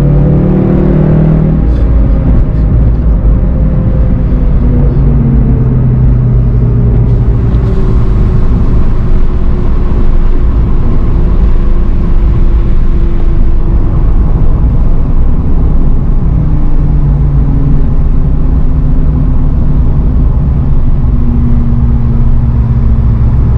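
VW Golf 7.5 GTI TCR's turbocharged 2.0-litre four-cylinder heard from inside the cabin, its note falling over the first couple of seconds as the car slows, then running steadily at low revs over constant road and tyre rumble.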